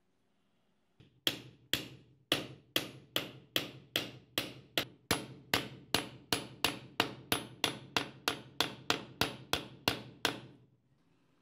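Steady hammer blows driving a new wooden handle into a restored claw hammer's steel head: about two dozen sharp knocks, a little faster than two a second, starting about a second in and stopping shortly before the end.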